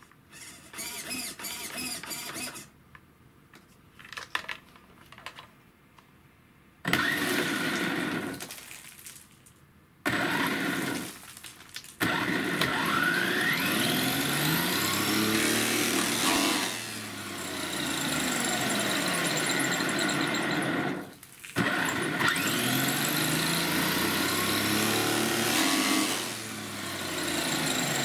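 Electric RC monster truck held off the ground, its motor and drivetrain whining as the wheels spin free under throttle. It starts with short bursts, then runs at high speed for most of the time, the whine rising and falling as the throttle is eased and opened again. At speed the tires balloon outward.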